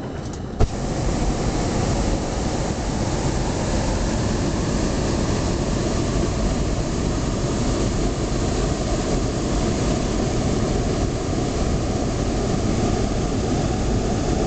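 Hot air balloon's propane burner firing: a loud, steady rushing blast that starts suddenly with a click about half a second in and holds without a break.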